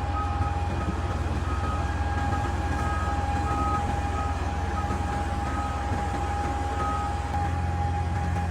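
CAT 390 hydraulic excavator's large diesel engine running steadily, with a low drone, a constant high whine and a higher tone that comes and goes.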